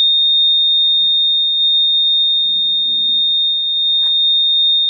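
Buzzer of a homemade rain detector alarm sounding one continuous high-pitched tone, steady and unpulsed: the alarm set off by water on its sensor.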